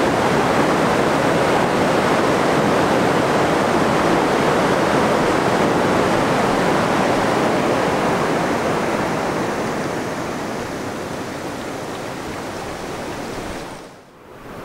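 Water rushing steadily over the rapids of a falls, growing gradually quieter in the second half and dipping away briefly just before the end.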